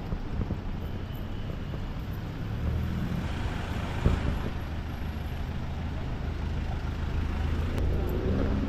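A vehicle engine idling with a steady low hum that grows louder about two and a half seconds in and again near the end. A single sharp knock about four seconds in.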